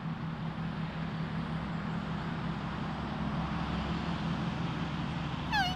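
Steady low outdoor background hum of distant road traffic, with a brief pitched sound rising in steps near the end.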